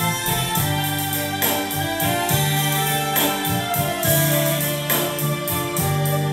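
Instrumental intro of a Vietnamese karaoke backing track, with sustained bass notes under a steady beat, played through a pair of 30 cm full-range speakers.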